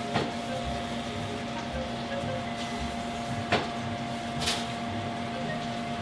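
Steady mechanical hum in a kitchen, with a wooden spatula knocking twice against a stainless saucepan while thick béchamel sauce is stirred, and a short hiss about four and a half seconds in.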